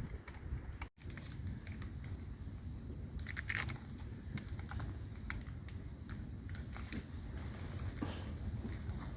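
Stirring stick clicking and scraping against a tin of antifouling paint, in scattered small taps over a low rumble.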